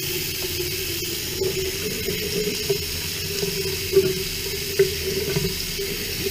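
Shower water running steadily and splashing onto the shower floor, with a couple of small knocks about four and five seconds in.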